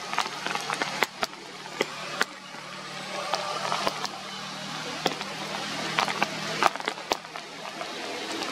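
Rain falling on forest leaves, a steady hiss dotted with many sharp drop hits, over a steady low hum.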